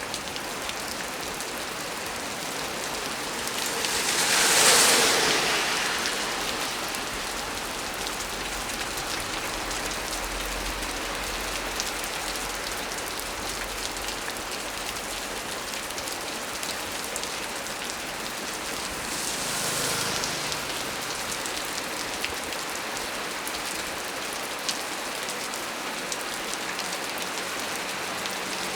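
Heavy rain falling steadily, a dense hiss full of individual drops ticking. It swells louder briefly twice, strongly about four seconds in and more weakly near two-thirds of the way through.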